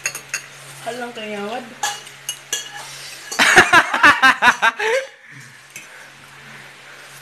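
Metal fork clinking and scraping in a stainless steel pot of noodles, in a few separate clicks. A short wavering voice sound comes about a second in, and a loud burst of voice near the middle is the loudest part.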